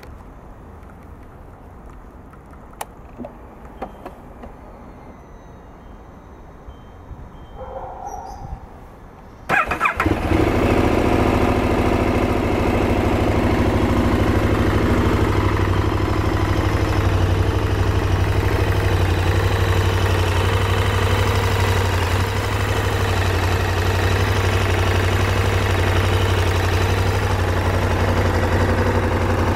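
KTM 1190 Adventure's V-twin engine started: after a few quiet seconds with a couple of light clicks, the starter turns it over briefly about nine and a half seconds in, and it catches and settles into a steady idle.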